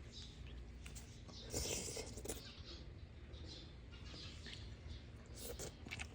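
Close-up eating sounds: chewing with small wet clicks and crunches, coming in short bursts, strongest about one and a half to two and a half seconds in and again near the end.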